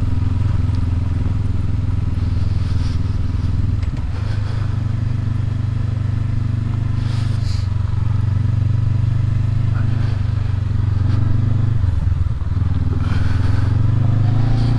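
2019 Honda CB500X's 471 cc parallel-twin engine running as the bike rides, a steady low drone whose pitch steps up about four seconds in and dips briefly near twelve seconds, with a few light clatters.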